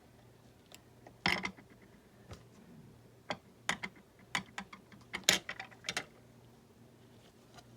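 Paper craft pieces being handled and pushed into place: a series of irregular sharp clicks and taps of cardstock, the loudest about a second in and about five seconds in.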